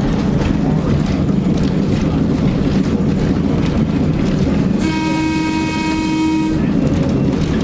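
Heritage train running, heard from inside the passenger coach: a steady low rumble from the wheels on the rails. About five seconds in, the locomotive sounds one blast of its horn, lasting nearly two seconds.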